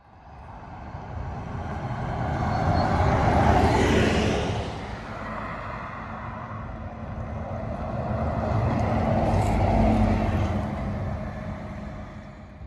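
Articulated city buses driving past one after another. Engine hum and tyre noise swell to a peak about four seconds in, ease off, and swell again about ten seconds in as a car and then a second bus go by, before fading as the bus pulls away.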